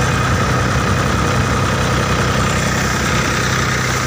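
Tractor diesel engine running steadily with an even low throb, driving a paddy thresher.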